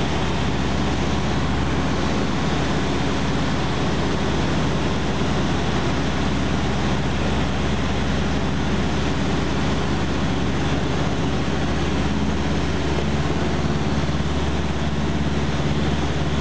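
Cessna 152's four-cylinder Lycoming engine and propeller running steadily, heard from inside the cockpit as a constant drone mixed with airflow noise, during the approach to land.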